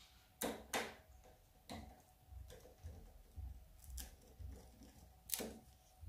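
Quaker parrot gnawing a wooden perch with its beak: irregular sharp clicks and cracks of beak on wood, about half a dozen, the loudest twice in the first second and once about five seconds in.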